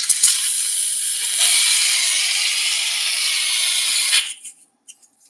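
Surgical suction hissing steadily in the open wound, then cutting off abruptly after about four seconds.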